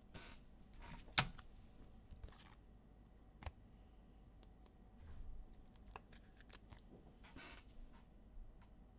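Faint handling sounds of a trading card being slid into a plastic sleeve and rigid top-loader: scattered light clicks and soft rustles, with a sharper click about a second in.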